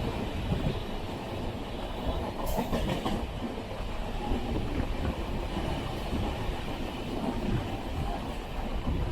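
Express passenger train running on the rails: a steady rumble with wheel clatter, and a brief sharper, louder patch about two and a half seconds in.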